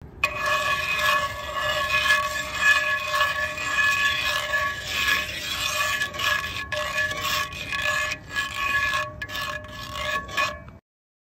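Metal tongs scraping and stirring eggs in a cast iron skillet, repeated rasping strokes about twice a second while the eggs scramble. A steady high ringing tone runs underneath, and the sound stops abruptly near the end.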